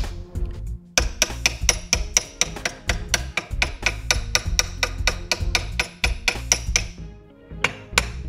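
Quick, even run of sharp hammer blows, about four a second, on a rusted monkey wrench's knurl, which is seized solid with rust, over background music with a steady bass line. The blows break off briefly just after the start and again near the end.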